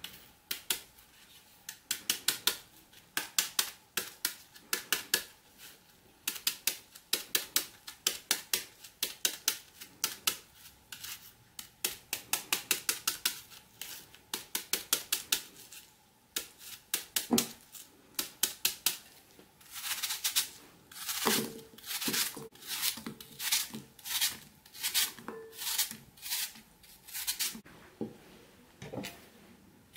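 Kitchen knife cutting a crisp peeled apple held in the hand: quick runs of sharp cuts, several a second, with short pauses between runs. The cuts are louder through the second half.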